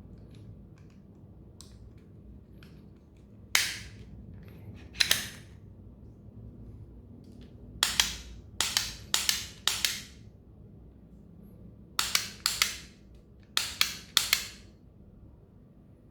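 Glock pistol trigger fitted with a dry-fire laser trainer, dry-fired over and over: sharp clicks as the trigger breaks, each ringing briefly. First two single shots, then a fast string of four, then two quick strings of three. Fainter ticks come before them, as the trigger is handled and reset.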